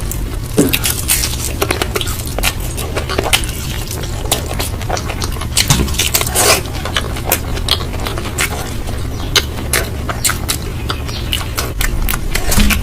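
Close-up eating sounds: food being bitten, crunched and chewed with many quick sharp crackles and clicks, over a steady low hum.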